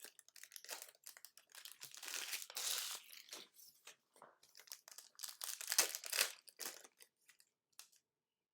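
Wrapping of football trading card packs being torn open and crinkled, in irregular bursts of crackling. It thins out near the end.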